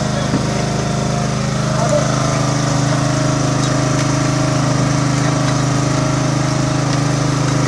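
Steady engine drone from a small fishing boat, running without change while the longline hauler draws line aboard.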